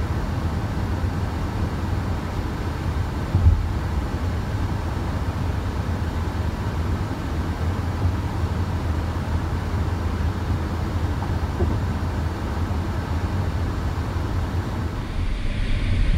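Road noise heard inside a moving car's cabin at highway speed: a steady low rumble of tyres and engine, with one brief knock about three and a half seconds in.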